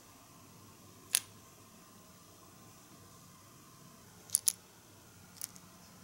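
Small, sharp plastic clicks of miniature replica candies being set into a tiny candy tin: one click about a second in, two quick ones after four seconds, and a fainter one near the end.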